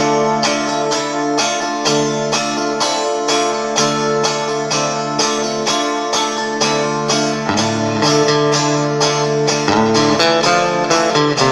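Guitar strummed in a steady rhythm, about two strokes a second, with the chords ringing on between strokes.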